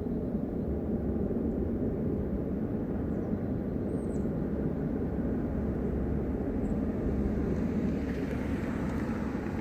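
Steady, loud low rumble from the sky that sounds like a low-flying jet, with no aircraft in sight; it swells slightly, with more hiss, near the end.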